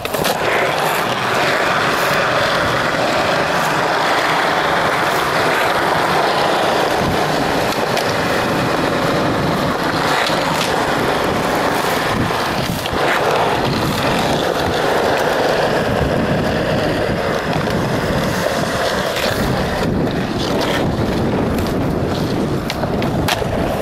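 Skateboard wheels rolling on smooth concrete: a loud, steady rolling noise with wind buffeting the microphone, broken by a few short clacks of the board.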